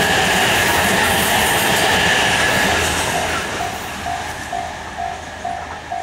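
E257 series limited express train passing at speed, its wheel and rail noise and a steady high whine fading as the last car clears the crossing. From about halfway in, the level crossing's electronic warning bell comes through, a short tone repeating about twice a second.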